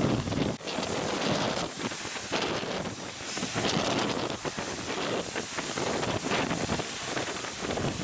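Gusting storm wind buffeting the microphone in uneven blasts, over the rush of heavy surf from storm waves breaking.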